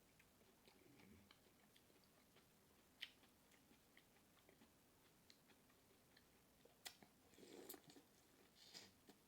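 Quiet, close-up chewing and lip-smacking, with scattered small wet clicks. Sharper clicks come about three and seven seconds in, and a short busier stretch of mouth noise follows near the end.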